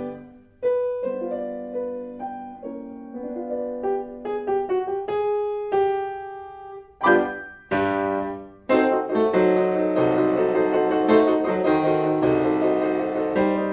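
Piano music: a sparse melody of single notes, then loud chords about seven and nine seconds in, after which the playing turns fuller and denser.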